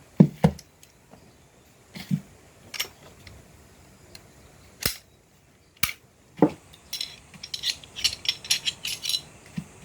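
Glock 9×19 pistol being taken apart by hand: single sharp metallic clicks and clacks of its parts, spaced a second or so apart, then a quick run of light rattling clicks about seven seconds in.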